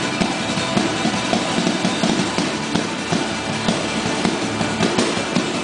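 Music playing steadily, dense and full, with a busy low end.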